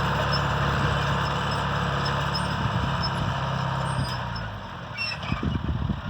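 Diesel engine of a John Deere 2755 tractor running steadily, fading out about four seconds in. Irregular low thumps follow near the end.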